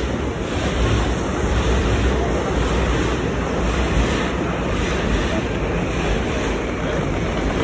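Wind buffeting a phone's microphone while walking: a steady low rumble with hiss over it.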